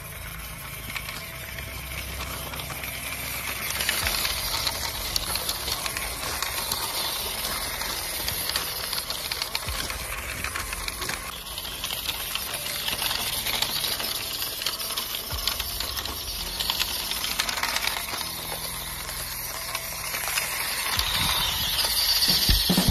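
Scale RC crawler pickup driving over loose gravel, its tyres and drivetrain making a steady crunching, rattling hiss on the stones.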